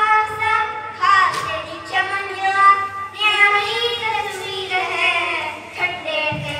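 Boys singing in Punjabi into handheld microphones, amplified through a sound system, in held phrases with short breaths between them, over a steady low hum from the amplification.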